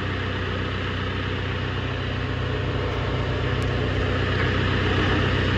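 Tractor engine idling steadily, a low even hum that grows slightly louder toward the end.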